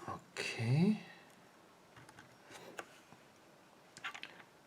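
A few faint, sharp metallic clicks and ticks from small tools being handled against a picked euro cylinder lock in a vise, with a short spoken "okay" near the start.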